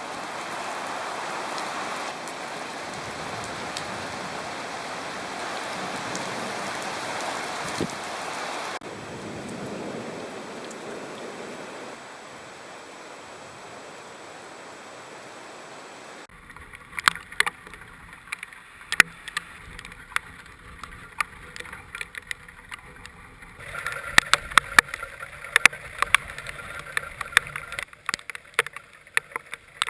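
Heavy rain and wind as a steady rushing noise, then after a cut about halfway through, many irregular sharp taps of rain or hail striking close to the microphone.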